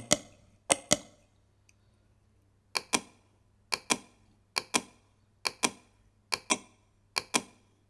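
Computer mouse clicking in pairs of sharp clicks, seven pairs at roughly one a second, as parameters are adjusted in the 3D modelling software.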